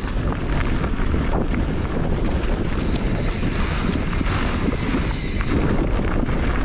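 Mountain bike riding down a dirt trail: wind buffeting the microphone, with steady tyre noise and many small knocks and rattles as the bike goes over rough ground.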